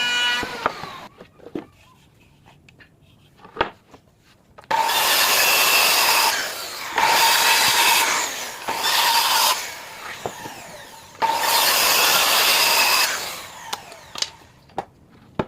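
An electric power tool cutting or sanding wood in three runs of about two seconds each, with a steady whine over the noise. Between the runs there are scattered clicks and knocks.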